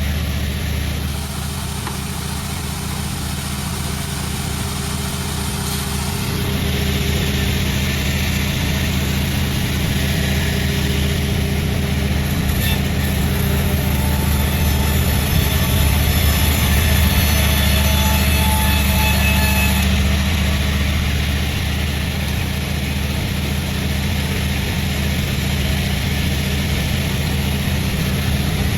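Sawmill machinery running steadily: a low motor hum with a harsher noisy layer above it. It grows louder and fuller from about six seconds in.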